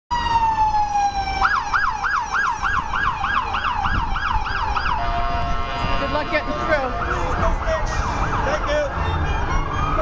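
Emergency vehicle siren switching modes: a falling wail, then a rapid yelp at about three cycles a second, a steady blaring tone for about two seconds, a short return to the yelp, and a new rising wail near the end.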